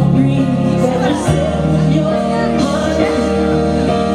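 A pop song playing, with a singing voice over held bass notes that shift every second or so.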